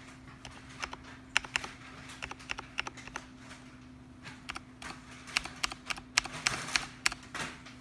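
Typing on a custom tenkeyless keyboard with lubricated vintage Cherry MX Brown tactile switches, a clear acrylic case and PBT DSA keycaps: irregular keystroke clacks, sparse at first, then quicker runs of keystrokes from about halfway.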